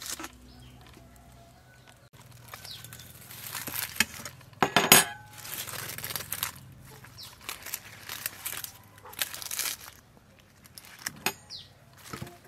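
Grilled banana leaves crinkling and rustling in irregular bursts as a leaf-wrapped packet is pulled open, with sharp clicks of a metal fork against the plate, loudest about five seconds in.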